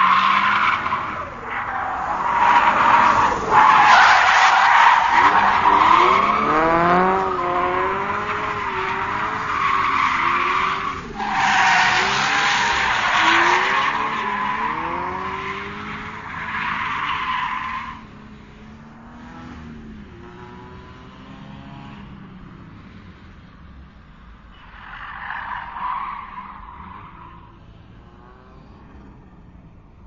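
Racing car drifting: long, loud tire squeals and skids over an engine revving up and down. The squeal breaks off for a moment about eleven seconds in and stops at about eighteen seconds. The engine then runs on more quietly, with one short squeal near the end.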